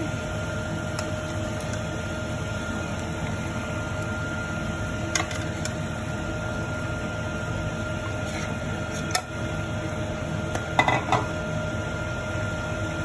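Metal spoon clinking against a cooking pan a few times as fish pieces are lowered into a simmering curry, with a quick cluster of clinks near the end, over a steady hum.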